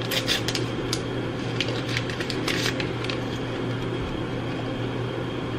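Crinkly rustling of a foil-lined tea-bag packet being torn open and handled, in a few sharp crackles over the first few seconds. A steady low hum runs underneath.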